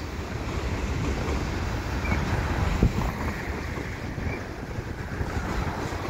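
Slow freight train of tank cars rolling past, a steady rumble of steel wheels on the rails mixed with wind buffeting the microphone; a single knock about three seconds in.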